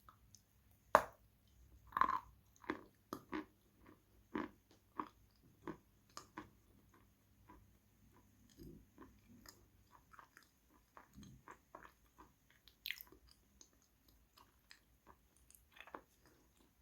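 Close-miked biting and chewing of crunchy Khrapovsky eating chalk. A sharp bite about a second in is followed by a run of crunches about twice a second, easing into softer, wetter chewing with a few more crunches near the end.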